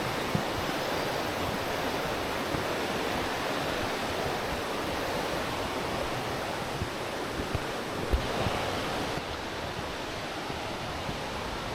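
Steady rush of falling water from a waterfall. A few faint low knocks come through it, the clearest about eight seconds in.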